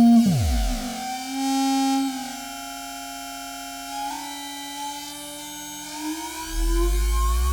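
Software synthesizer tones with pitch modulation: a low tone sweeps steeply down at the start, steady pitched tones hold more quietly through the middle, and near the end several tones glide slowly upward.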